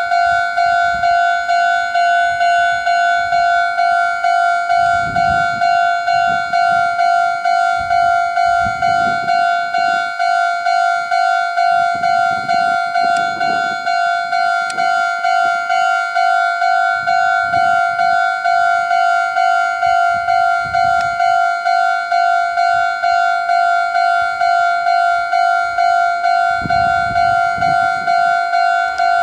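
Japanese railway level-crossing warning alarm ringing, an electronic bell tone repeating steadily just under twice a second, the signal that a train is approaching.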